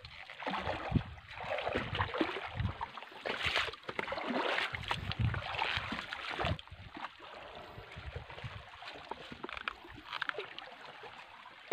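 Shallow seawater sloshing and splashing around legs wading among rocks, in an irregular run of swishes with low thumps, busier in the first half and quieter later.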